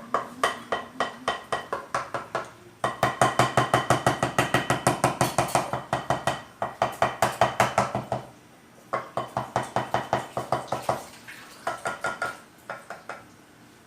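A spoon stirring glue in a bowl, clinking against the side in quick, even strokes of about five a second. It comes in several bouts with short pauses, loudest about three to six seconds in.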